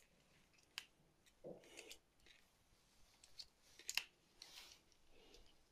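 Near silence with a few faint, scattered clicks and soft rustles of a plastic 120 mm cooler fan and its wire fan clips being handled. The sharpest clicks come about four seconds in.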